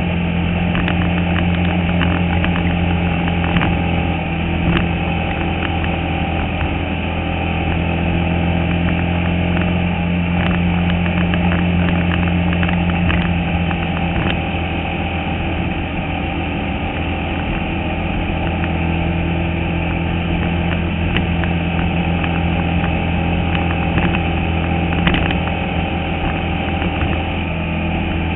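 Bandolero race car's single-cylinder Briggs & Stratton engine running hard at a steady, even pitch, heard from inside the cockpit, with scattered short clicks over it.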